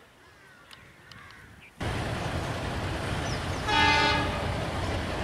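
Faint bird calls, then a steady outdoor rumble starts abruptly about two seconds in. Near the middle a horn sounds one short blast of about half a second, a train horn from a train approaching the level crossing.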